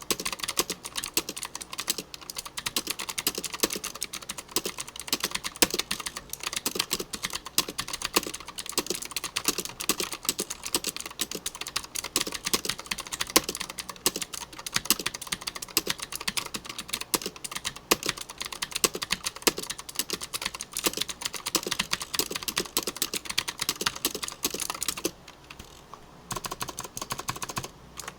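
Keys of a Gigaware K28 computer keyboard being typed on fast and without a break, a dense run of clacking keystrokes. The typing stops for about a second near the end, then starts again.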